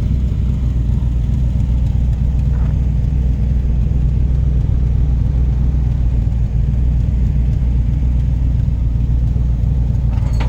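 1989 Lincoln Town Car's 5.0-litre V8 idling steadily with a low rumble, running with an exhaust leak.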